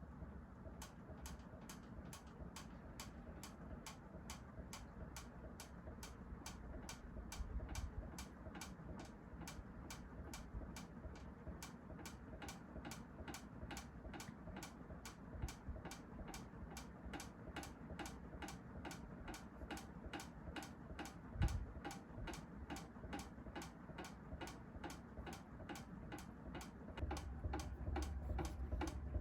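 Kichler Todo ceiling fan running, with a steady, even ticking about three times a second over a low rumble of the motor and moving air. One brief low thump about three-quarters of the way through, and the low rumble grows louder near the end.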